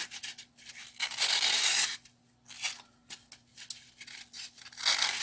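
Craft knife cutting and scraping into dry green floral foam: a crisp, scratchy rasp in uneven strokes, loudest about a second in and again near the end, with short quiet gaps between.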